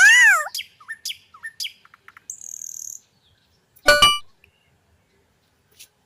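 Bird chirps and twittering: a gliding warble, then several short chirps over the first two seconds, with one brief louder call about four seconds in and quiet gaps between.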